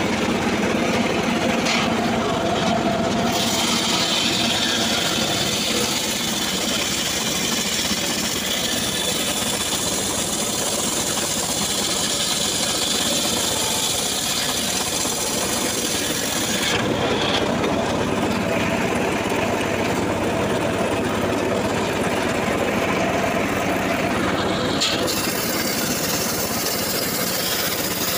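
Homemade table circular saw ripping a teak log lengthwise, its drive running steadily under load. The blade cutting the wood adds a strong high hiss from about three seconds in until past the middle. The hiss eases for several seconds, then returns strongly near the end.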